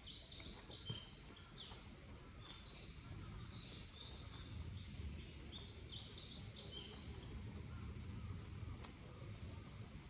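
Several small birds chirping and calling in short, overlapping high notes, over a faint low rumble of background noise.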